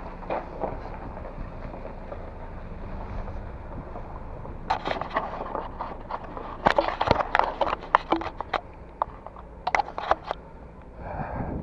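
Irregular clusters of sharp clicks and knocks, like objects being handled or rattling, over a steady low rumble.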